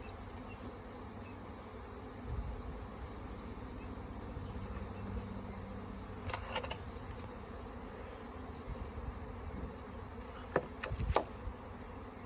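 Honey bee swarm buzzing steadily, the constant hum of many bees in flight around the cluster being collected. A few light clicks come in the second half.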